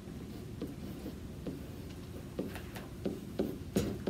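Pen tapping and scraping on an interactive whiteboard while a word is written in capital letters: a run of short, irregular strokes, coming closer together toward the end.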